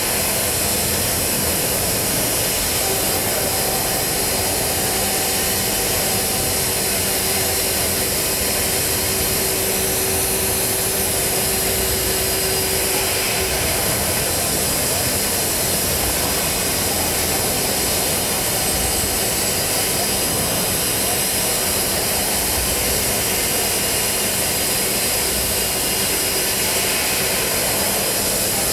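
End mill in a milling chuck slotting AISI 1045 steel on a machining centre: a steady cutting noise with machine hum, joined by a steady tone about three seconds in that drops out a little before halfway. The cut runs without chatter.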